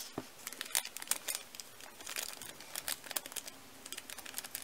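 A paper pancake-mix packet crinkling in the fingers as it is shaken and squeezed to empty the powder into a plastic tray: many small, irregular crackles.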